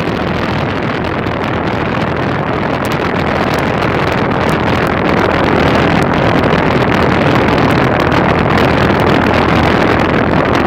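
Loud, steady rush of air blasting across the microphone, with crackling buffeting. It starts and cuts off abruptly.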